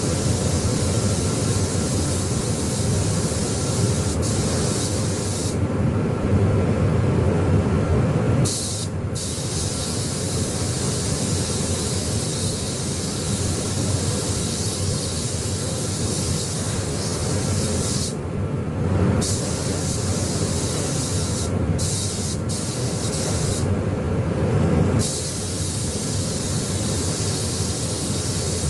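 Paint spray gun hissing as it sprays, its hiss cutting off and starting again several times, over a steady low rumble.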